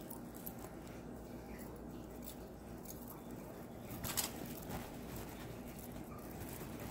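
Faint handling sounds: a cloth rustling and a metal charm bracelet's links clicking, over a steady low room hum, with a louder rustle and clatter about four seconds in.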